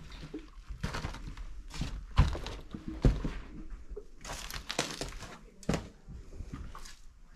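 Footsteps crunching over broken plaster and debris on a rubble-strewn floor, with two heavy thuds about two and three seconds in.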